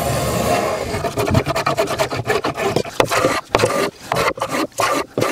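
Small hand plane shaving plywood edges: one steady stroke at first, then from about a second in, quick short strokes, about four a second.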